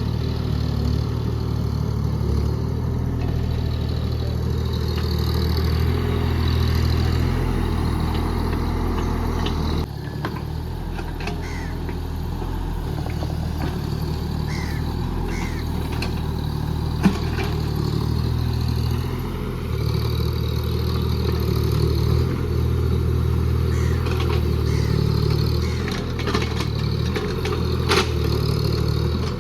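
JCB JS30 Plus mini excavator's diesel engine running under working load, its level rising and falling in stretches, with scattered clanks and one sharp knock a little past halfway.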